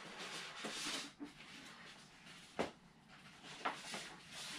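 Faint handling noise of a foam RC jet fuselage being picked up and moved: soft rubbing and rustling of foam and plastic, with one sharp click about two and a half seconds in and a couple of lighter ticks near the end.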